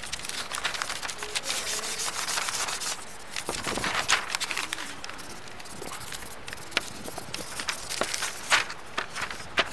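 A drawing tool scratching and rubbing across paper in quick, irregular strokes, with a few sharper, louder strokes about four seconds in and again near the end.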